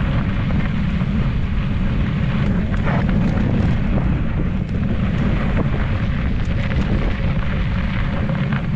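Wind buffeting the camera microphone as a mountain bike rolls along a dirt trail, a steady low rumble. Tyre noise on the dirt runs under it, with scattered small clicks and rattles.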